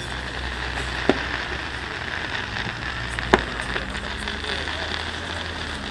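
Fireworks going off: two sharp bangs, about a second in and again, louder, a little past three seconds, over a steady hiss.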